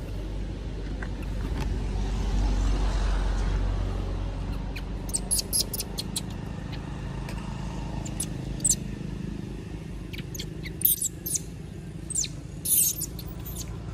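Outdoor ambience: a low rumble that swells about two to four seconds in and then eases, with a scatter of short, high-pitched chirps in the second half.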